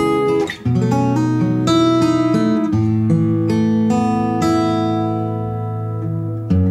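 Cutaway acoustic guitar played fingerstyle: plucked notes and chords ringing over held bass notes, with a short break about half a second in.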